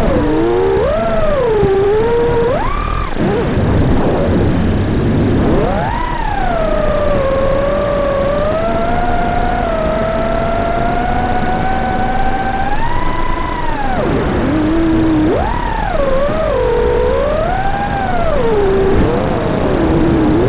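FPV quadcopter's brushless motors and propellers whining, the pitch swooping up and down with the throttle. Through the middle the whine holds fairly steady and slowly climbs, then drops sharply about two-thirds of the way through before swooping up again.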